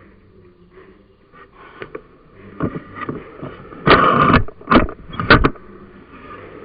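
A series of scraping, rustling noises, the loudest a half-second scrape about four seconds in and two short ones just after it.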